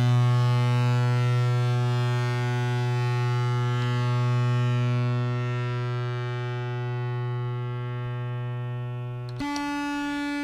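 Fuzz-distorted contrabass clarinet note held as a drone by the Superego+ sustain pedal, slowly fading. About nine seconds in it switches abruptly to a higher held note.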